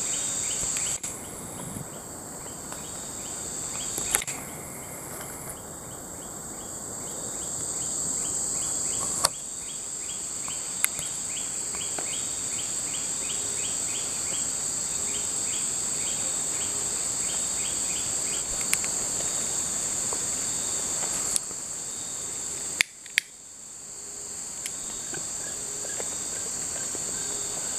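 Insect chorus: a steady high-pitched shrill drone with a pulsing chirp running underneath it, broken by a few scattered sharp clicks.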